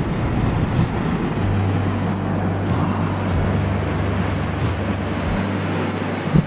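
White-water mountain river in spate rushing over rocks below a bridge: a loud, steady rush of water. A brief thump near the end.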